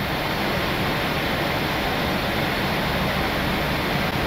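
Steady rushing noise of an airliner's flight deck in cruise: airflow and air-conditioning hiss over a low rumble.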